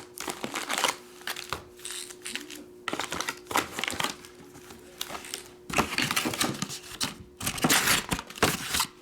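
Trading card boxes and their wrapping handled by hand: irregular crackling, clicking and rustling of plastic wrap and cardboard, in bursts with short gaps.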